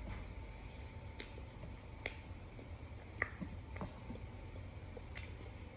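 A person chewing crunchy laundry starch chunks: quiet chewing broken by a few sharp, isolated crunches.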